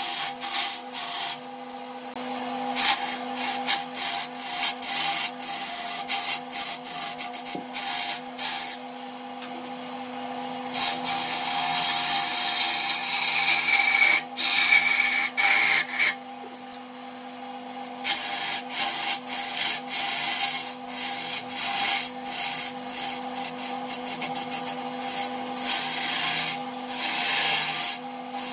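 Wood lathe running with a steady motor hum while a hand-held turning tool cuts a spinning wooden blank, a rough, irregular scraping as shavings tear off. Near the middle the cut runs on unbroken for a few seconds with a high whistling tone.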